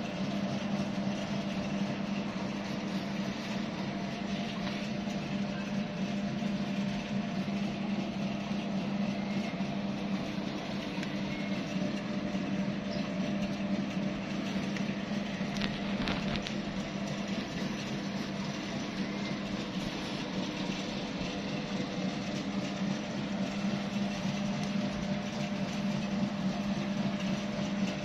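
A machine running steadily, an even low-pitched hum with a few higher overtones that holds unchanged throughout.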